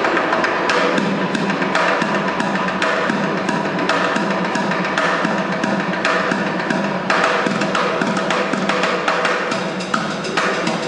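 Street drummer playing a fast, dense drum pattern, sharp hits coming several times a second without a break.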